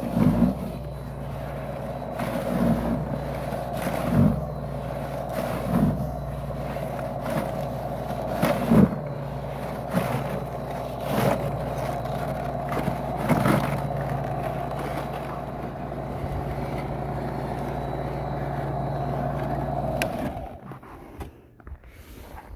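Snapper XD 82-volt brushless snow broom running with a steady hum as it is pushed through snow on its bottom rails, with short knocks every second or two. The motor stops near the end.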